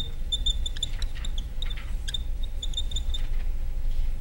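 Marker squeaking on a whiteboard as words are written: short high chirps in irregular clusters, over a steady low hum.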